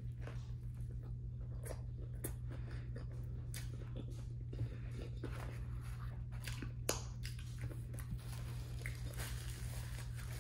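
Close-miked chewing of a bite of fried chicken sandwich, with wet mouth clicks and smacks, over a steady low hum.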